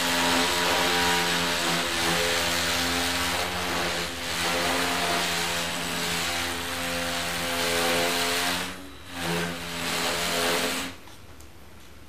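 Zhiyun Crane 2 gimbal motors buzzing loudly and steadily: the strong vibration fault that sets in when the gimbal is switched to inverted (upside-down) mode. The buzz breaks off briefly about nine seconds in, returns, then stops near the end.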